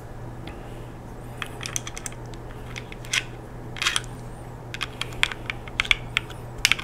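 Light, irregular metallic clicks and taps from the steel parts of a Ruger Mark II .22 pistol being handled during reassembly.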